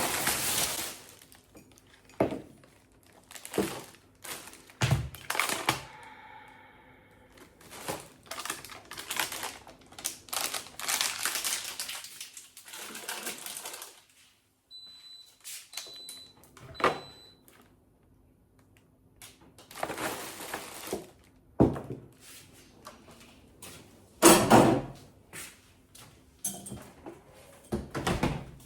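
Food containers, jars and packets being handled, knocked together and set down while a fridge is cleared out: scattered knocks and clatters with stretches of rustling. Three short, high electronic beeps come in the middle.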